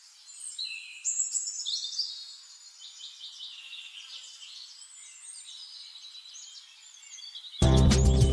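Small birds chirping, many quick overlapping calls and short pitch glides, thin and high with no low sound under them. Near the end, loud music starts suddenly.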